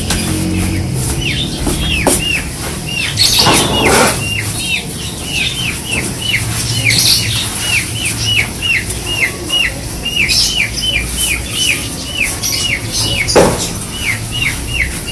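A small bird cheeping without pause in a steady series of short, falling chirps, about two or three a second. A few scraping strokes come from a brush swept over the coop wall, the loudest about 3.5 and 13.5 seconds in.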